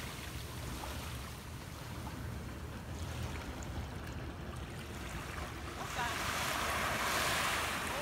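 Sea surf washing on a beach, with wind rumbling on the microphone; the wash grows louder about six seconds in.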